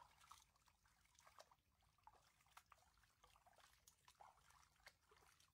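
Near silence, with faint scattered small ticks and taps.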